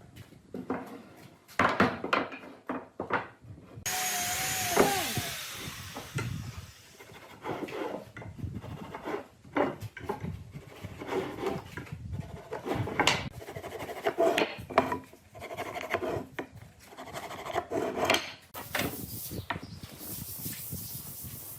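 Wood being rubbed and scraped by hand in many irregular strokes, with a steady hiss lasting about two seconds from around four seconds in.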